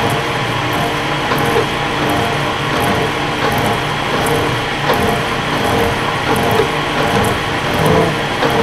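Milling machine turning a slitting saw at about 70 RPM while it cuts a quarter-inch-deep slot in a soft aluminum bar under hand feed: a steady mechanical running sound.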